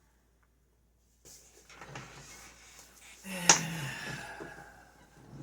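Handling noise from a lock and its picking tools: rustling and scraping, with one sharp click about three and a half seconds in.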